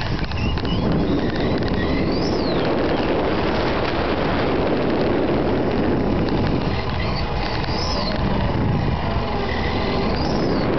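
Onboard sound of a radio-controlled model car driving over asphalt: a loud, steady rush of tyre, drivetrain and wind noise, with a few short high squeals now and then.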